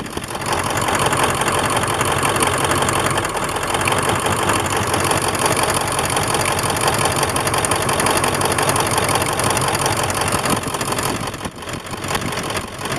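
Ford 7.3 Power Stroke V8 turbodiesel idling with a steady diesel clatter, dipping briefly near the end. Its idle is rough from a misfire, which the owner traces to a weak number-six injector.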